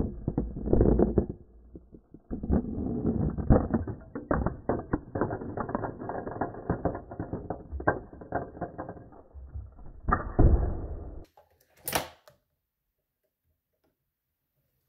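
LEGO robot trash truck's motors, gears and grabber mechanism running, a dense muffled clatter of clicks and knocks with a brief pause about two seconds in. It stops abruptly about eleven seconds in, followed by one sharp click.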